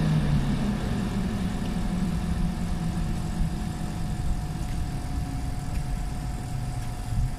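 Cooling fans of a stationary LNER Class 91 electric locomotive running down: a low hum that slowly sinks in pitch and grows quieter, with a steady higher whine over it.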